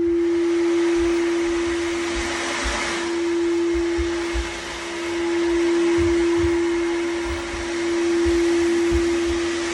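Ocean drum: beads rolling across the drumhead in a rushing wash like surf, swelling and easing every few seconds. Under it a singing bowl rings one steady tone.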